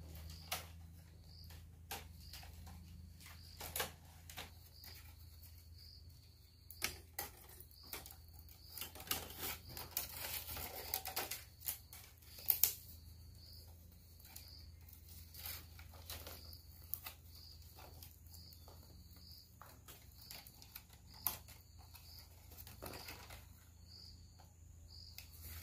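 Irregular clicks, taps and scrapes of hand work, thickest about halfway through. Behind them a faint high chirp repeats about once a second over a steady low hum.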